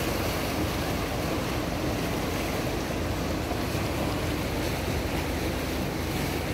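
The Kampar River's tidal bore (the Bono) surging upstream: a steady rush of churning, turbulent floodwater and breaking wave crests.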